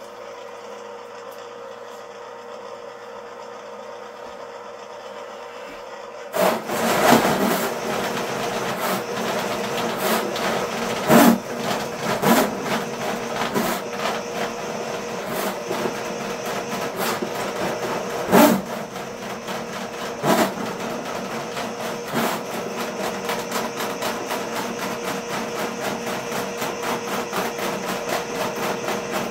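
Ridgid K50 sectional drain machine snaking a root-clogged sewer drain. A quieter steady hum gives way about six seconds in to the machine running hard, its spinning cable rattling and ticking with repeated loud knocks.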